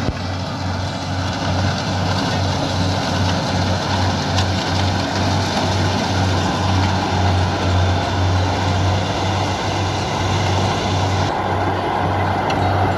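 Combine harvester's engine running steadily under load, a continuous low hum with a slight pulse, with machinery noise over it as it cuts rice.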